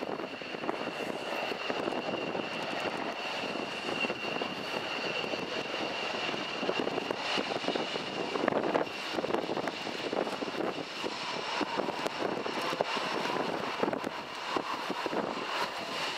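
Eurocopter Tiger attack helicopter flying past, its twin turboshaft engines giving a steady high whine over the noise of the rotors. A lower tone comes in after about eleven seconds as the helicopter moves.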